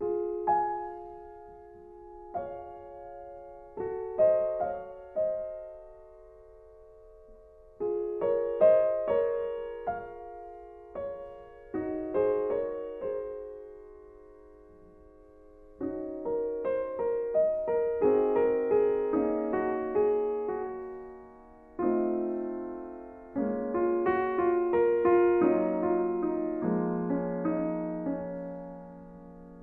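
Piano music: slow, sparse phrases of chords and melody notes that ring and fade, with short pauses between them, becoming fuller and more continuous about halfway through.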